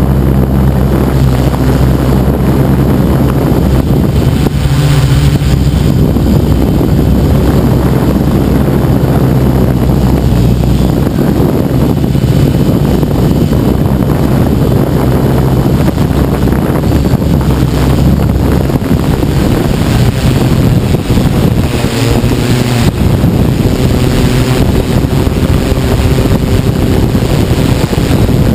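The Tarot 690S hexacopter's six electric motors and propellers, heard from on board, humming steadily over a rushing wind noise. The low hum shifts in pitch a few times as the motors adjust.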